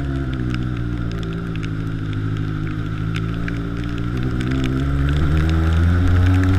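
Yamaha XJ6's inline-four engine, fitted with a 4-into-1 aftermarket exhaust, running steadily under way, its note sagging a little and then rising and getting louder about five seconds in as the bike accelerates.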